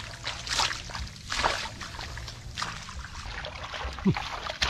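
Bare hands digging and scraping through sandy soil and grass, a few separate swishing scrapes, with a short vocal sound near the end.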